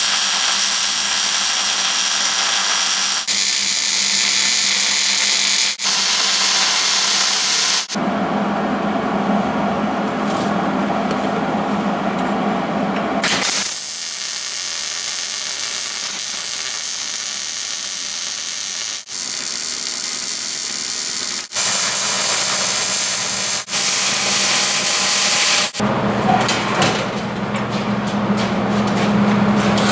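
MIG welding on steel frame tubing: a steady crackling hiss from the wire-feed welder. The sound changes abruptly every few seconds where short clips of the welding are joined.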